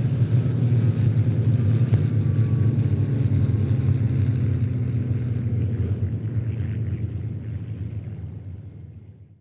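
Piston engines of a formation of Spitfire and Hurricane fighters flying overhead, a steady deep drone that fades out over the last two seconds.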